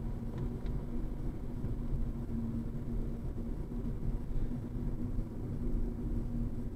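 Road noise inside a car's cabin at highway speed: a steady low rumble from the tyres and engine, with a constant hum.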